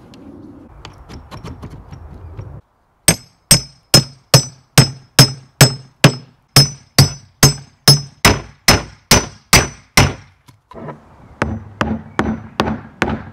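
Hammer striking a steel cold chisel held in the lid seam of a locked wooden strongbox, to force it open. There is a steady run of sharp metallic strikes with a ring, about two and a half a second. Near the end come lighter, quicker knocks as the chisel is worked into the gap.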